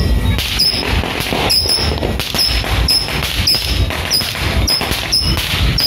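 Saturn missile fireworks battery firing its small rockets one after another in rapid succession, about two shots a second.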